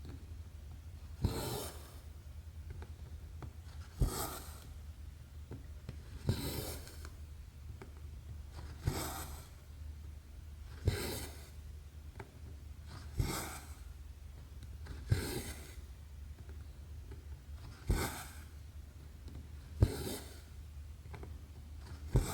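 Hand cross-stitching on 11-count canvas: roughly every two seconds the needle pops through the stretched fabric with a sharp tap, followed by the rasping swish of the floss being drawn through, about ten stitches in all. A steady low hum runs underneath.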